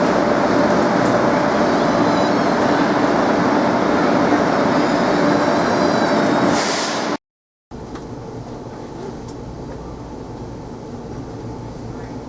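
A passenger train running: a loud steady rail rumble with a steady hum and faint high wheel squeals, and a short hiss just before the sound cuts off about seven seconds in. After half a second of silence, a quieter steady rumble continues.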